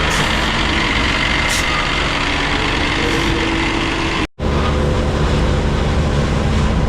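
Heavy truck engine running steadily, from the knuckle boom crane truck. The sound cuts out sharply for an instant about four seconds in, then carries on the same.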